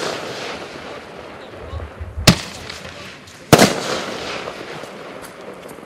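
Lesli Scepter Duo firework battery firing: two sharp shell bursts, the first about two seconds in and the second at about three and a half seconds. The second burst is doubled by a quick crack and trails off slowly.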